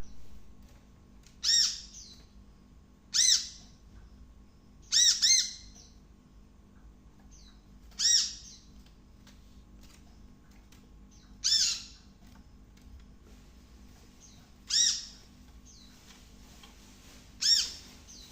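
A bird's short, harsh, arching call, repeated seven times at intervals of about two to three seconds, the third time as a quick double call. It is a lure recording meant to set a kept bird calling along. A faint steady hum runs underneath.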